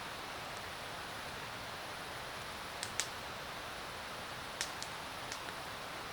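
Wood campfire burning with a steady hiss and a handful of sharp crackling pops, the loudest about three seconds in.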